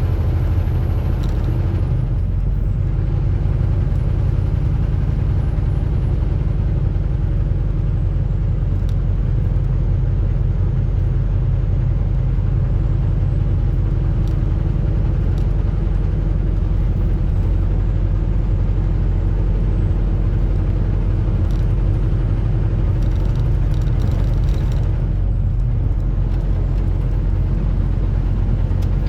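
Heavy truck running steadily down the road: a constant low engine drone with a few even tones over road noise, and a few faint clicks.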